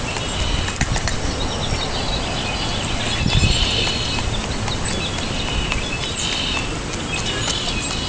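Wild turkey pecking birdseed off asphalt close by, its beak striking the pavement in quick, irregular taps. Small birds chirp in the background.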